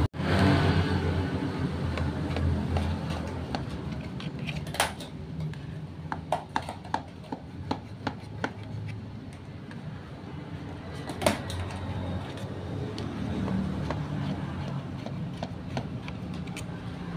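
Scattered light clicks and taps of a utensil against a metal baking tin, the sharpest about five and eleven seconds in, over a low steady background hum.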